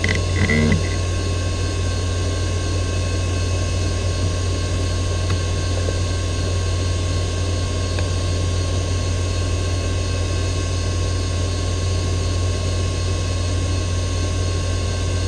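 Western Digital Caviar 205AA IDE hard drive spinning at full speed after spin-up: a steady low hum with a faint high whine, mixed with the steady whir of the test computer's fans during the BIOS memory test.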